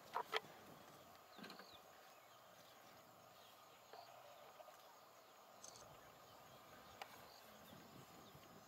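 Near silence: faint outdoor ambience, broken by two sharp clicks just after the start and a few fainter ticks later on.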